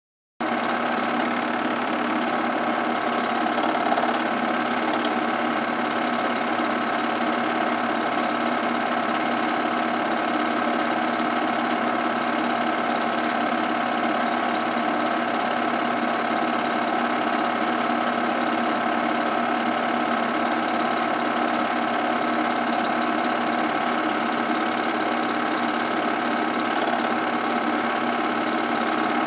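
Film projector running: a steady mechanical whir with several held tones, starting abruptly right at the beginning.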